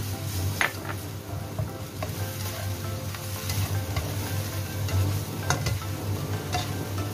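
Broccoli and squid sizzling in a nonstick wok as a slotted spatula stirs and tosses them, with a few sharp clicks of the spatula against the pan.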